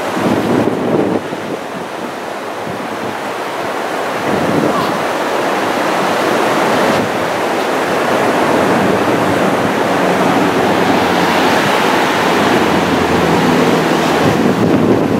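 Ocean surf washing on the beach, with wind blowing across the microphone.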